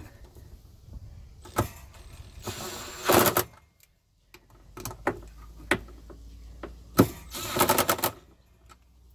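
Ratchet wrench tightening the cable terminal nuts on a golf cart motor controller: two runs of rapid clicking, about three seconds in and again near the end, with a few single sharp clicks between.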